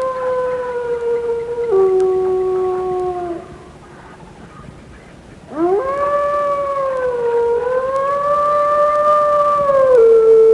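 Canine howling, long drawn-out howls: a held howl steps down in pitch and fades out about three and a half seconds in. After a short lull a new howl rises sharply, is held with a brief dip in pitch, then drops to a lower steady note near the end.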